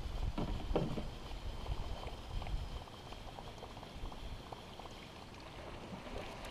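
Whopper Plopper topwater lure splashing across the water as it is reeled in toward the kayak, with wind rumbling on the microphone during the first few seconds.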